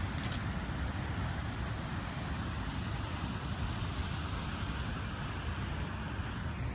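Steady outdoor background noise: a low rumble with a fainter hiss above it, and no distinct event.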